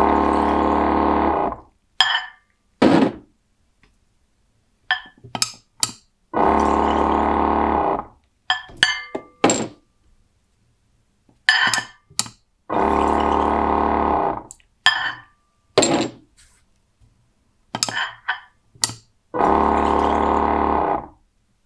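The pump of a 12 V desktop liquid filling machine runs four times, a steady motor whine of about two seconds each, dosing 40 ml into a glass bottle each time. Between runs come short clinks and clicks as the glass bottles are swapped.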